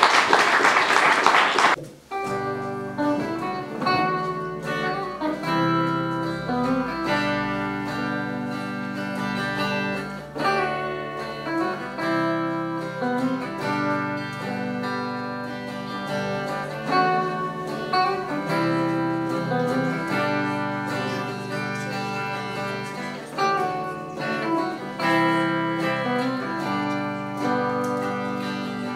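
A short burst of applause for about two seconds, then a guitar ensemble of electric and acoustic guitars playing a melodic tune with held bass notes.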